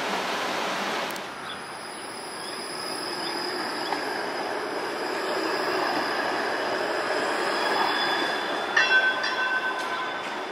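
Bombardier Flexity Outlook low-floor streetcar passing on its rails, its steel wheels squealing in high steady tones over a hum of street noise. A louder, many-toned squeal breaks in near the end.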